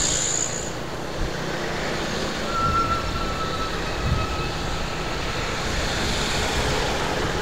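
Steady road traffic noise from cars, a minivan and motorcycles passing close by, with wind rumbling on the microphone.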